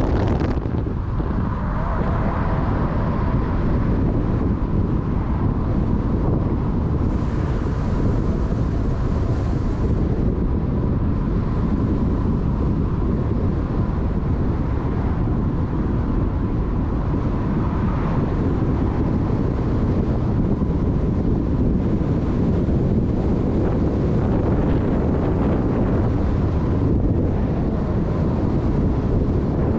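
Steady rumble of a moving vehicle with wind buffeting the microphone, and a faint steady whine running through it.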